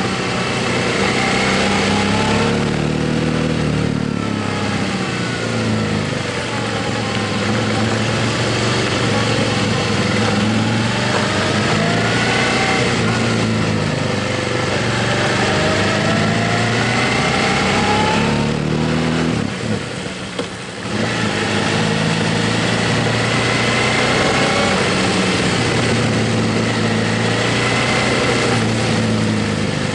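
Motorcycle engine running on the move with a steady rush of noise over it. Its pitch rises and falls with the throttle, and the sound drops briefly about twenty seconds in.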